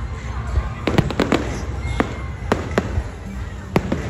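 Fireworks display going off: a quick cluster of sharp bangs about a second in, then single bangs spaced out over a steady low rumble.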